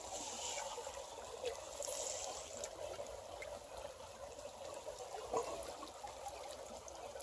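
Shallow creek water trickling steadily, with a few faint small splashes or ticks.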